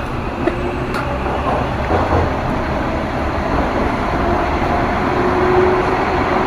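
Subway train ride noise heard from inside a moving car: a continuous rumble of wheels on rails, with a faint whine holding a steady pitch over it.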